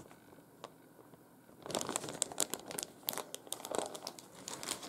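Clear plastic bags holding model-kit sprues crinkling as they are handled, a dense run of crackles starting about one and a half seconds in.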